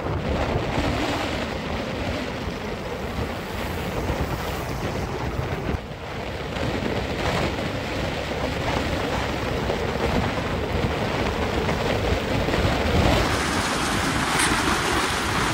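Steady rushing of wind over the microphone on a moving motorbike, with a brief dip about six seconds in.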